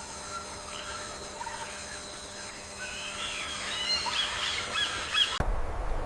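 Several birds chirping and calling in short notes and trills, busiest in the second half. Near the end the sound cuts abruptly to a rough, low rushing noise.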